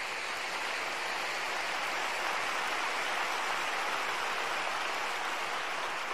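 Audience applauding, a dense, even clapping that builds over the first second or two and then holds steady.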